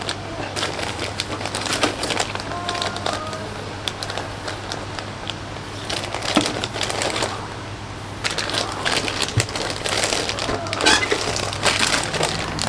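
Clear plastic bags of model-kit sprues crinkling and rustling as they are handled, in irregular crackles, over a faint steady low hum.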